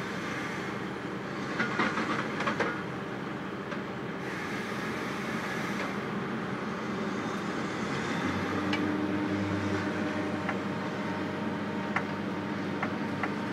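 Diesel engine of a log loader running steadily under hydraulic work, with scattered knocks and clanks. A cluster of knocks comes about two seconds in, and the engine note shifts to a deeper, steadier tone about eight seconds in.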